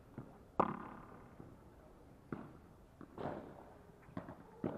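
Padel rally: a padel ball is struck back and forth with solid padel rackets and bounces on the court, giving sharp pops. The loudest comes about half a second in, followed by four fainter hits and bounces spread through the rest.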